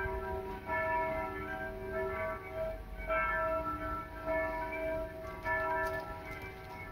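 Bells ringing in a repeating pattern, a new stroke about every second, each ringing on with several overlapping tones.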